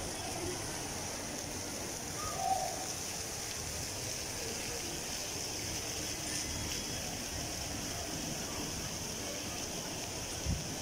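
Steady splashing and hiss of an outdoor plaza fountain, with faint distant voices and a brief low thump near the end.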